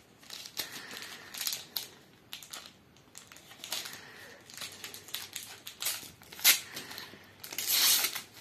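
Panini trading-card packet wrapper crinkling as it is handled and then torn open, with a sharp crack about two-thirds of the way in and a longer rip near the end.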